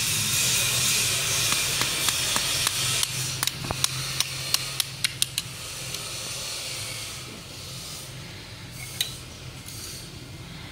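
Steady hissing for the first few seconds, then a quick run of about a dozen sharp metallic clicks and clinks over two seconds or so, and one more clink near the end: small steel parts of a Suzuki manual gearbox (gears, snap rings, shaft) being handled and knocked together.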